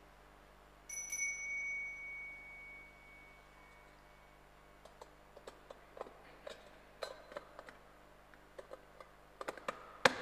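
Altar bell rung once about a second in, ringing clearly and dying away over a few seconds. Then scattered soft clicks and knocks echo in the church, with a sharper knock near the end.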